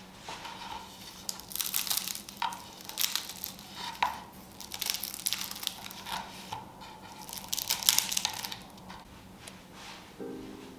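Crisp, flaky kattama (layered onion flatbread) being torn apart by hand, its crust crackling and crunching in several bursts. Light music starts near the end.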